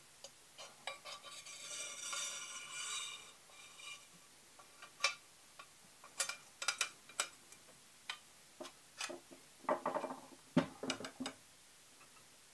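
Metal top rail of an FX DRS Tactical air rifle being slid onto the gun and seated by hand: a scraping metal-on-metal slide, then a run of light clicks and knocks, densest about ten seconds in.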